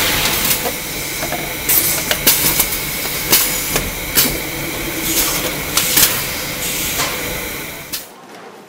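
Vinyl record pressing machinery running: a steady hiss and hum broken by irregular sharp clanks and clicks. It cuts off abruptly near the end.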